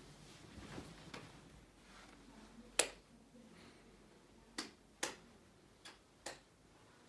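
A series of sharp, irregularly spaced clicks, the loudest about three seconds in, with a few fainter ones before it and a cluster of four more in the second half.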